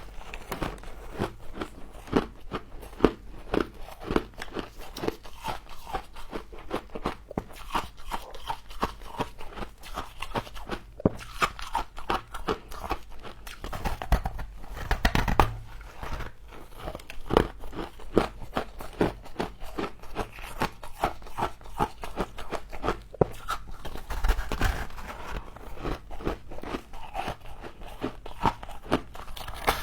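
A person biting and chewing frost: repeated irregular crunches and crackles.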